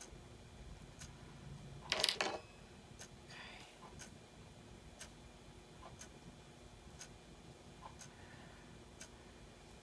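A clock ticking steadily, about once a second. About two seconds in, a short, louder noise rises over the ticking.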